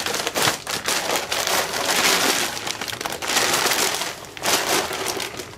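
Large foil Mylar bags crinkling and crackling as they are handled and opened, a continuous run of rustles that eases off near the end.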